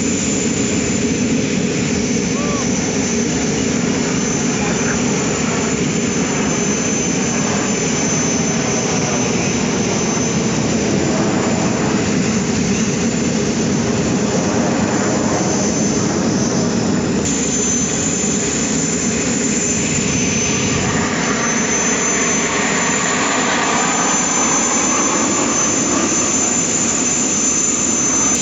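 Jet engines of an aerobatic display formation flying overhead: a steady loud jet rush, with a sweeping, swirling change in pitch as the jets pass, about halfway through and again later.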